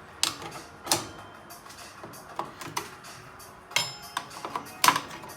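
Hand tools clanking and clicking against the steel springs and hardware of a rear drum brake as they are pried off. There are four sharp metallic knocks with a brief ring, at about a quarter second, just under a second, near four seconds and near five seconds, and lighter clicks in between.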